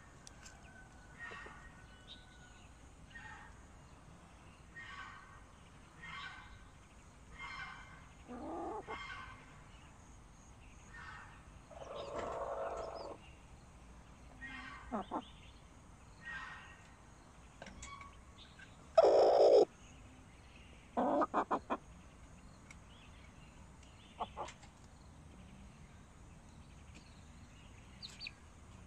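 Sanhuang chickens clucking, with a hen settled on the nest to lay. Soft short clucks come about once a second, broken by a few louder calls. The loudest is about two-thirds of the way in, followed by a quick rattle of sharp notes.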